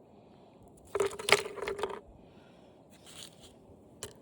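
Small plastic parts from an old TV clattering and knocking together as they are handled on a scale, a quick run of knocks lasting about a second, then a single short knock near the end.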